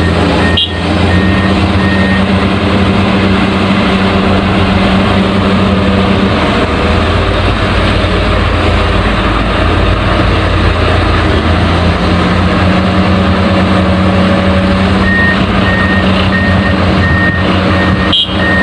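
Heavy construction vehicle's diesel engine running steadily, with a reversing alarm beeping for the first couple of seconds and again for the last few seconds.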